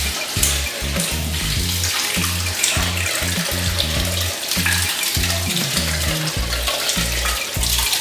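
Water pouring strongly out of a small washing machine's drain onto the floor as the machine drains, a steady rush of water, over background music with low bass notes.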